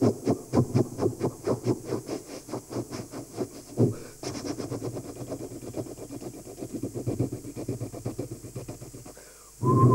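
A man imitating a steam locomotive with his mouth. Rhythmic chuffing runs at about four puffs a second, with a sharper puff about four seconds in. Then comes quicker, softer chuffing that fades, and a steady train whistle starts just before the end.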